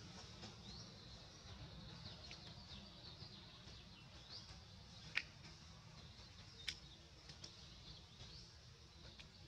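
Faint outdoor ambience of birds chirping with short, high calls over a low background rumble. Two sharp clicks about a second and a half apart in the middle stand out as the loudest sounds.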